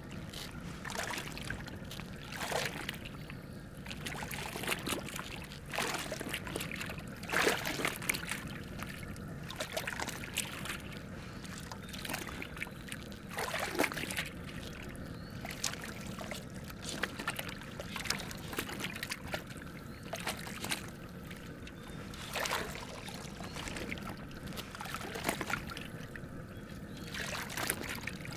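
A slaughtered chicken dunked and swished up and down by its feet in a large pot of hot scald water: irregular sloshing and splashing. This is the scald that loosens the feathers before plucking.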